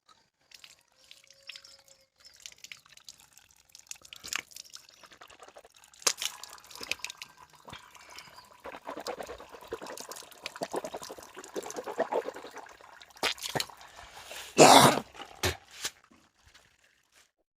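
Irregular splashing and dripping of water with scattered clicks, and one louder splash near the end.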